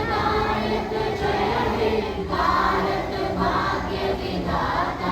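A group of schoolboys singing the national anthem together in unison, with held notes and short breaks between phrases.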